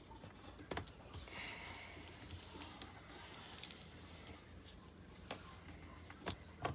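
Faint handling of paper and fabric tape on a handmade book cover, with a few light taps and clicks.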